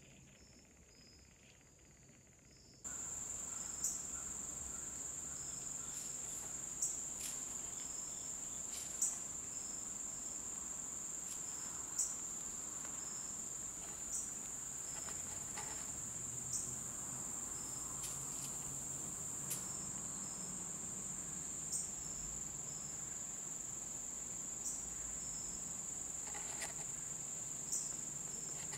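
Steady high-pitched insect chorus in the woods, with faint repeating short chirps underneath; the level jumps up sharply about three seconds in. Scattered faint clicks every few seconds.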